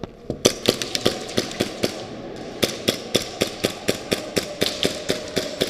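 Airsoft rifle firing rapid single shots, about four a second: one string of sharp cracks, a half-second pause about two seconds in, then a second string.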